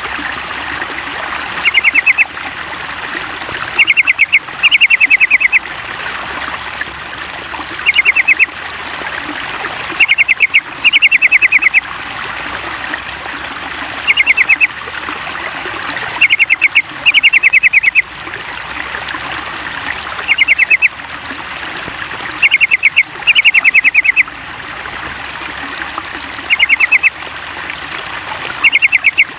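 Yellow-vented bulbul (trucukan) calls, short bursts of quick chirps repeated every two seconds or so in a regular, looped-sounding pattern. Under them runs a steady trickle of running water.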